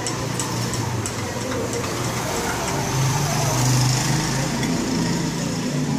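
Steady low motor hum, like a vehicle engine, swelling a few seconds in. A few light clinks of a metal spoon against a glass sound in the first two seconds as cocoa is stirred into milk.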